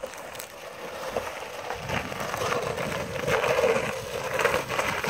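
Plastic saucer sled scraping down an icy, snow-covered road, growing steadily louder as it comes closer.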